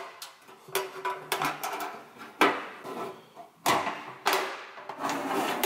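Metal safe deposit box being handled: its hasp and lid clack shut, with a series of sharp metallic clacks and short scrapes.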